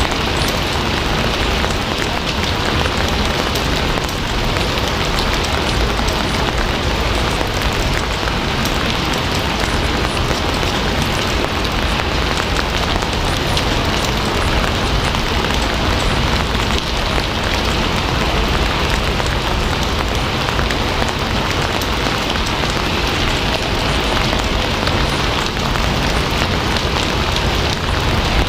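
Steady, heavy rain falling: a constant hiss with fine patter of drops that holds even throughout.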